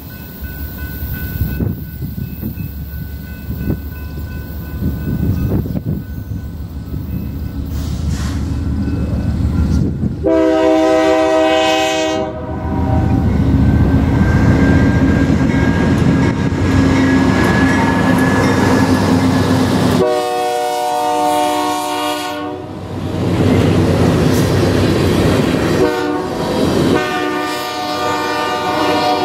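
A BNSF GE Dash 9-44CW diesel locomotive leads a short geometry train past. Its rumble builds as it approaches, then its Nathan K3LA air horn sounds two long blasts about ten and twenty seconds in. A short blast and another long blast follow near the end, a long-long-short-long pattern like a grade-crossing signal. Wheels run on the rails between the blasts.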